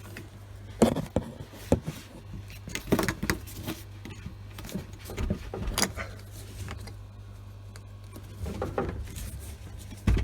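Plastic parts of a Fluval 306 canister filter's hose connections being handled: irregular sharp clicks and knocks as fittings and clips are pulled off and fitted, with a few short rattles in between.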